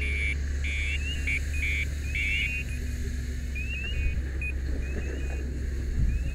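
Electronic alarm sounding in a fast repeating pattern of high beeps and short rising chirps, loud for the first two to three seconds and then fainter, over a steady low rumble.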